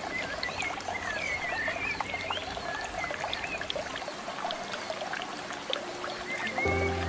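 Water poured from a plastic cup into a hang-on-back aquarium filter box, trickling and splashing onto the filter sponge, with short chirping tones among the splashes.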